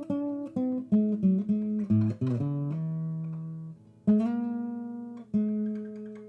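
Background music on acoustic guitar: single plucked notes, a quick run of notes about two seconds in, then long notes left to ring and fade away.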